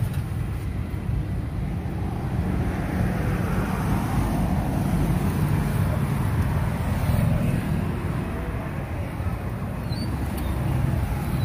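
Steady outdoor street noise dominated by a low rumble of traffic.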